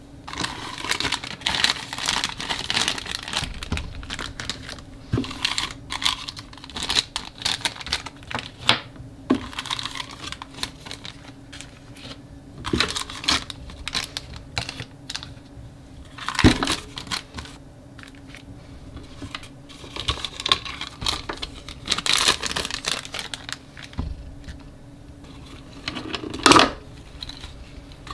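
Shiny plastic wrappers crinkling and rustling as they are handled, with scattered light clicks and taps and two louder knocks, one about halfway through and one near the end.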